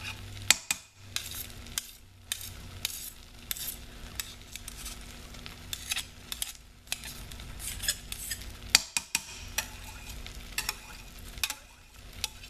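A metal knife scraping thick hot-process soap off a metal spoon and knocking against the rim of a ceramic crock pot, giving many sharp clicks and clinks with scraping between them.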